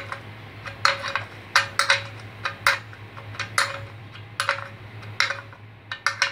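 A 14 mm steel ring spanner clinking against the oil-pan drain plug as it is fitted and turned by hand to tighten the plug. About a dozen sharp metallic clinks come at uneven spacing, each with a brief ring.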